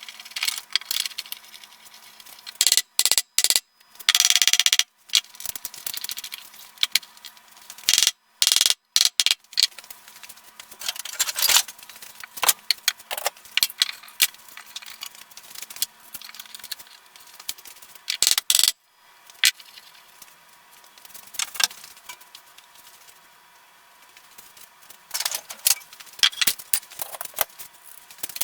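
Workshop handling noise: many short clicks, taps and small metallic rattles of tools and hardware, broken by a few sudden silences.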